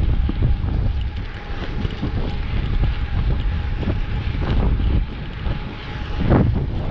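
Wind buffeting the microphone of a camera on a moving e-bike: a heavy, steady low rumble, with a louder gust about six seconds in.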